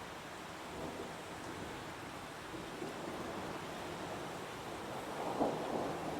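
Heavy rain falling steadily in a forest, a continuous even wash of noise, with a brief louder swell about five seconds in.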